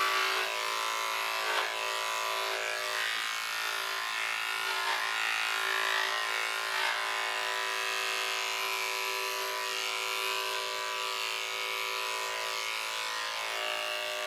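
Corded electric dog-grooming clipper running with a steady buzzing hum as it shaves through a small dog's coat.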